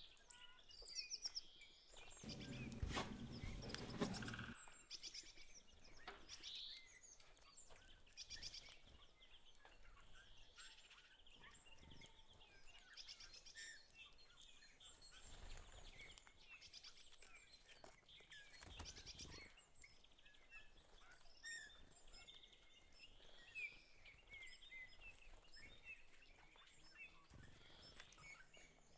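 Mostly near silence with faint bird chirps in the background. About two seconds in, a couple of seconds of rustling as the paper and tape wrapping around a plant cutting is handled.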